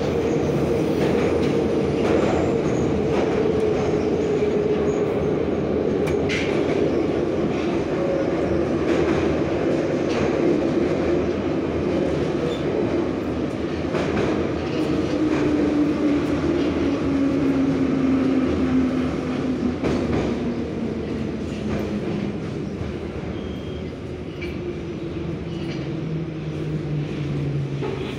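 Inside a 1970s Em-type metro car slowing into a station: a steady rumble of wheels on rail with occasional knocks, under a whine that falls steadily in pitch as the train brakes.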